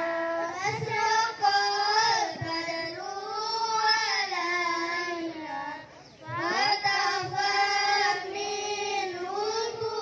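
Children's voices singing a sholawat, a devotional song in praise of the Prophet, together into hand-held microphones, with long drawn-out notes that glide and bend in pitch. A brief breath pause about six seconds in.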